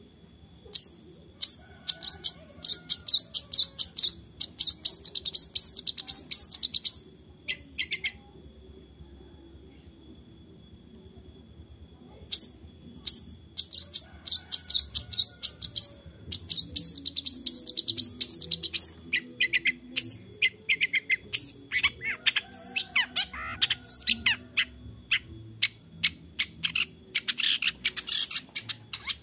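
Long-tailed shrike (cendet) singing in fast runs of sharp, chattering notes, in two long bouts with a pause of about four seconds between them.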